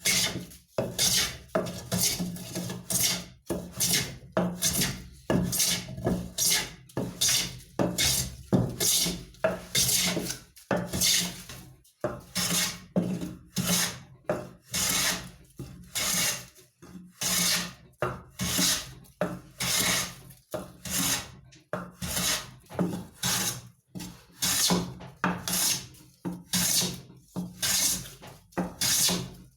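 Wood being rasped or hand-sawn in steady back-and-forth strokes, about one and a half to two strokes a second.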